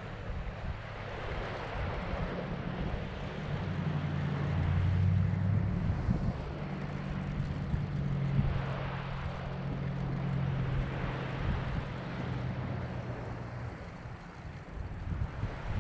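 A distant engine passing: a steady low hum that grows over the first few seconds, holds, then fades near the end.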